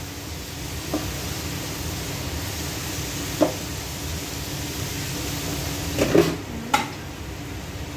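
Steady whir of a kitchen range hood fan over the stove, with a few short clinks and knocks of metal cookware as a wok lid and pans are handled. The loudest clanks come about six to seven seconds in.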